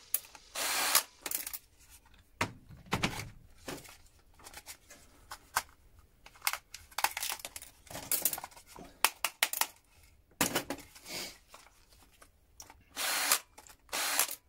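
Small hand tools working apart plastic relay switches: irregular clicks and short scraping bursts, the loudest near the start and again near the end.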